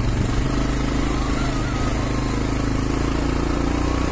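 Bajaj Pulsar 220F's single-cylinder engine running steadily while the bike rides over a rough dirt track, its note rising slightly near the end.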